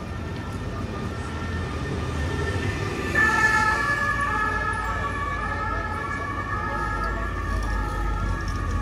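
Emergency-vehicle siren alternating between two steady notes, growing louder about three seconds in, over low traffic rumble.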